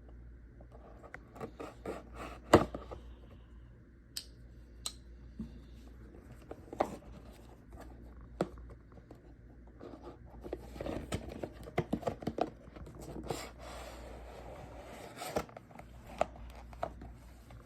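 A multi-tool box being unpacked by hand: scattered clicks and taps with one sharp click about two and a half seconds in, then about five seconds of scraping and rustling packaging from around ten seconds in.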